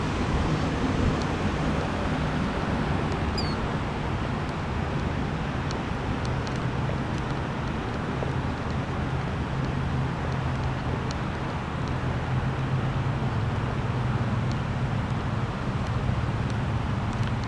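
Steady outdoor noise: wind on the microphone over a low, steady rumble.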